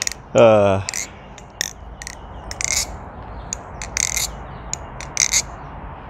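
MachineWise Mayrn Lite balisong being flipped, its metal handles and blade clicking and clacking together in sharp, irregular clicks, several a second.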